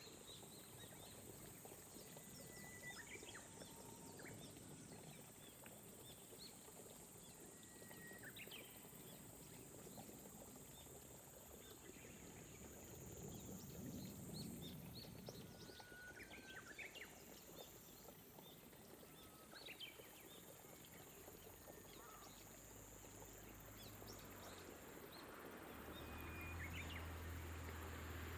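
Gentle rain falling on a rice-paddy landscape, faint and even, with birds calling now and then in short chirps and brief whistled notes. A low hum rises near the end.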